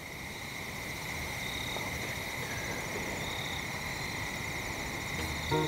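Steady chorus of chirping insects, fading in over the first second. Music comes in near the end.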